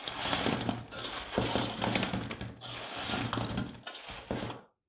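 Silicone spatula stirring sugar-crusted fried shakarpara in a steel parat: a dry scraping rustle with small clicks as the pieces, their sugar syrup coating dried hard, tumble against each other and the steel. It stops shortly before the end.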